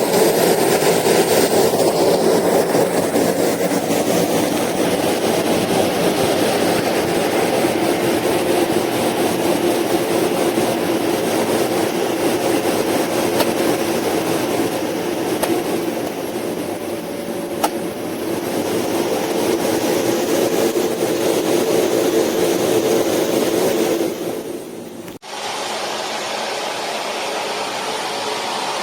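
A 900 W Philips Series 3000 bagged vacuum cleaner running with a steady whirring motor. About 25 seconds in the sound drops and changes abruptly to a quieter, duller rush of air.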